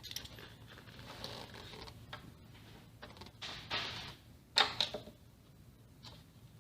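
Hand-tool work on a dental chair base as the screws holding the bellows wood are taken out: scraping and rubbing with a cluster of sharp clicks about four and a half seconds in.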